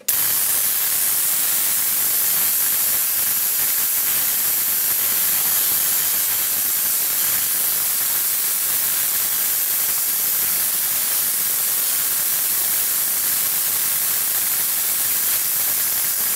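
Small Tesla coil with a flat spiral secondary running, giving a steady, loud, high hiss from its electrical discharge. The hiss starts and stops abruptly.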